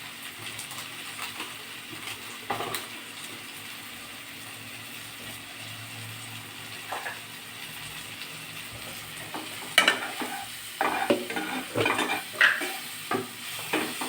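Spiced onion-tomato masala frying in a pan with a steady sizzle. About ten seconds in, a spoon starts scraping and knocking against the pan in quick strokes, stirring the masala.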